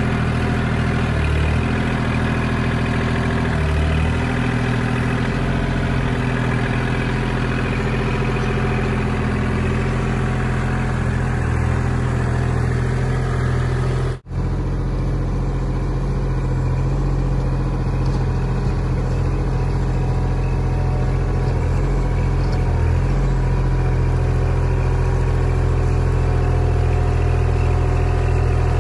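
Kubota L2501 compact tractor's three-cylinder diesel engine running steadily while the front loader digs. The sound drops out for a moment about halfway through.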